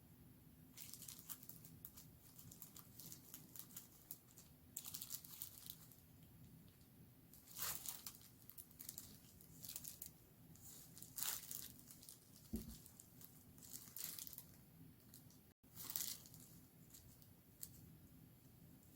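Packaging being handled during a phone unboxing: faint crinkling and tearing in about six short bursts a few seconds apart.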